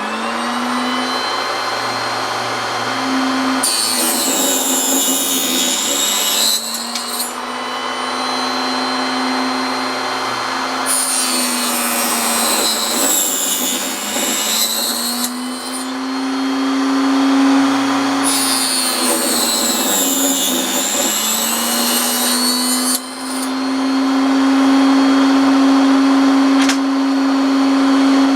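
Proxxon KS 230 miniature table saw running steadily and cutting through small pine pieces three times, each cut adding a high-pitched rasping whine over the motor hum, with the motor's pitch sagging a little under load.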